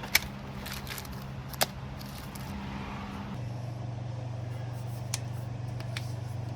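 A few sharp, separate clicks of small metal parts being handled, over a steady low hum that shifts lower about three and a half seconds in.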